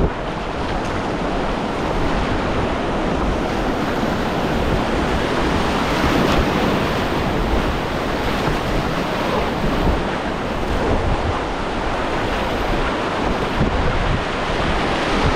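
Whitewater kayak running a river rapid: a steady, loud rush of churning water splashing around the boat.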